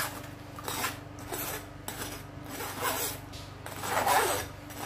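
Metal spoon scraping and pressing blended tomato pulp through a stainless steel mesh sieve: a wet rasping scrape repeated about every half second or so, the loudest stroke near the end.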